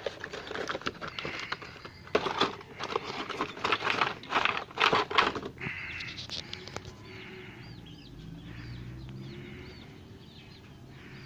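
Clear plastic blister pack and cardboard box crackling and rustling as they are handled and the pack is pulled out, a dense run of sharp crackles for about the first six seconds. After that a bird chirps repeatedly in the background.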